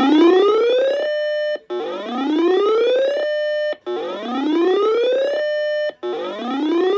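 Siren-style warning tone from a radio station's severe weather alert, heard over the broadcast. A buzzy tone rises in pitch over about a second, holds briefly, then cuts off, repeating about every two seconds.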